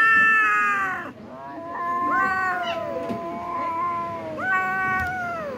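Cats yowling as they fight: three long, drawn-out yowls, some overlapping, several trailing down in pitch at their ends, the first the loudest.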